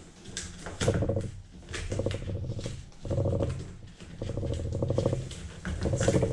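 Packing tape being pulled off a cardboard shipping box in about five short pulls, each a crackling, rapid stick-and-release rip.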